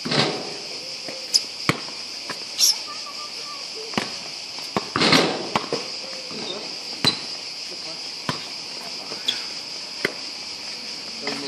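Steady high-pitched insect chorus, with a basketball and players' shoes knocking on a hard outdoor court: scattered sharp thuds about once a second, busiest around five seconds in.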